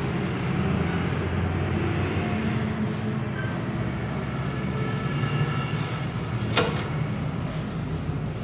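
Diesel injection-pump test bench running steadily, turning a Bosch VE distributor pump, with a low mechanical hum. A single sharp click comes about six and a half seconds in.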